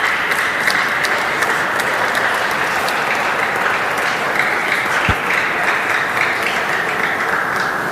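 Spectators in a sports hall applauding a won point, a steady patter of clapping that eases slightly near the end.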